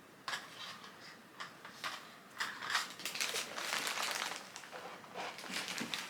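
Rustling and crinkling of product packaging being handled, a run of short irregular crackles that are busiest a little past the middle.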